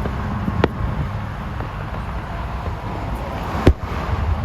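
Fireworks going off: a sharp bang about half a second in and a louder one about three seconds later, over a steady low rumble.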